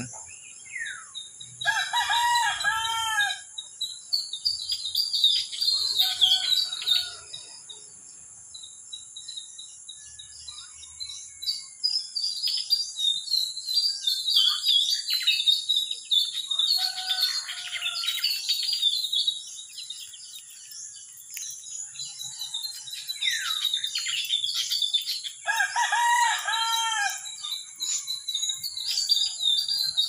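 Small birds chirping and twittering in quick high notes throughout, with a rooster crowing twice, about two seconds in and again near the end. A steady high insect drone runs underneath.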